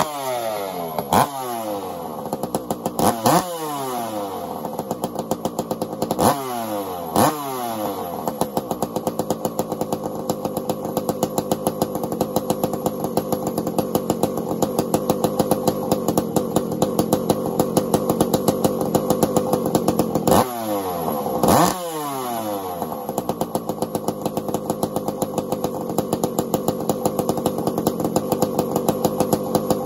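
Two-stroke chainsaw pull-started, catching right at the start, then running. It is revved in short blips a few times early on and twice again about twenty seconds in, the pitch dropping back each time, and otherwise idles steadily.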